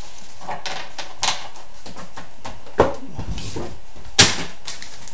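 Trading cards and card packs being handled on a table: a few sharp knocks and taps with light rustling, the loudest knock about four seconds in.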